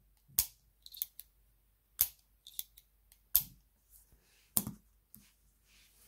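Click mechanism of a titanium Tactile Turn pen being worked by hand: a string of short, sharp clicks at uneven spacing, roughly one a second, some coming in quick pairs.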